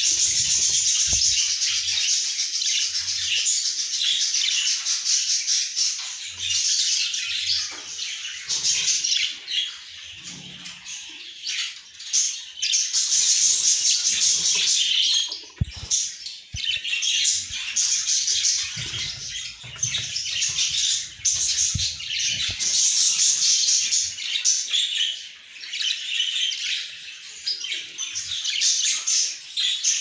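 Budgerigars calling: a continuous harsh, rapid chirping and chattering that drops away briefly a few times.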